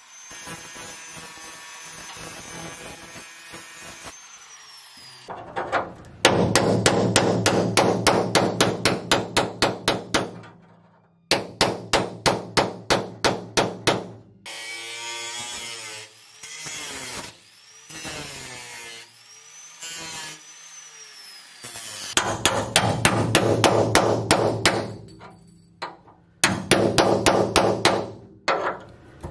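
Angle grinder running, then winding down about four seconds in. After that come several bursts of rapid hammer blows on a steel chisel, about four or five a second with short pauses between, splitting the seam between a Mazda Miata's floorpan and rocker panel.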